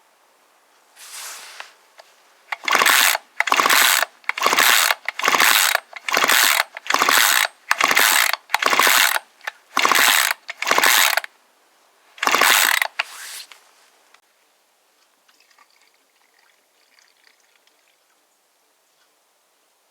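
A ratcheting mechanism worked in quick strokes: about ten rasping ratchet runs of half a second each, roughly one every 0.8 seconds, then a short pause and one or two more.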